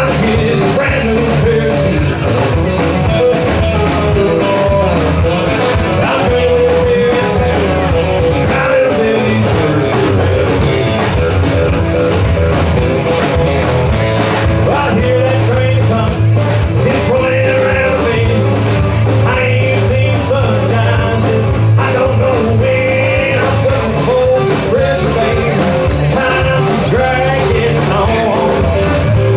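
Live band playing amplified through a PA: drum kit, bass guitar, electric guitar and acoustic guitar together in a steady rhythm.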